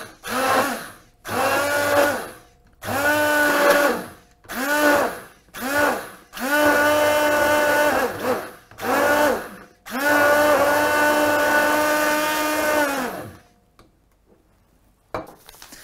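Hand-held immersion blender whirring in short pulses as it blends eggs and mandarin juice in a glass. There are about eight bursts, and on each the pitch rises as the motor spins up and falls as it stops. The last burst is the longest, about three seconds.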